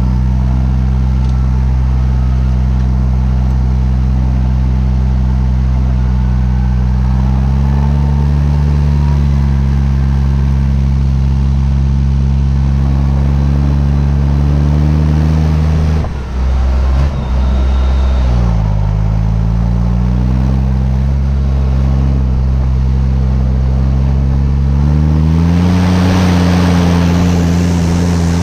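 Fendt 820 Vario tractor's Deutz six-cylinder diesel engine running under way, its speed rising about seven seconds in, dropping back around eighteen seconds, and rising again near the end. The sound briefly dips around sixteen seconds in.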